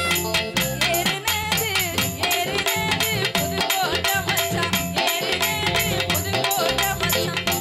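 Instrumental interlude of Tamil folk music played by the stage band: a melody line over a fast, steady percussion beat with a bright rattling shake on top.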